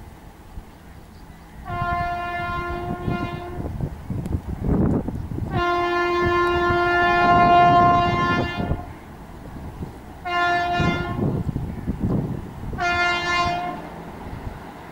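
Indian Railways electric locomotive horn sounding several blasts over the low rumble of an approaching train: a broken blast about two seconds in, a long blast of about three seconds in the middle, then two shorter blasts near the end.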